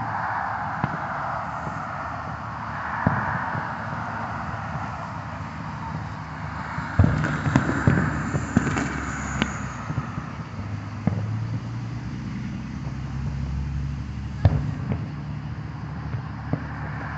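Distant aerial fireworks going off: scattered sharp bangs and cracks, a cluster of them about halfway through and a single loud one later.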